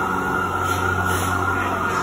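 Steady machine hum: a low, even drone with a hiss over it, unchanging throughout.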